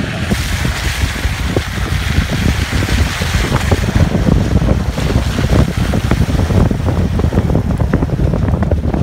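Wind buffeting the microphone outside a Mitsubishi L200 pickup driving over rough ground, over a low rumble with many irregular knocks and bumps.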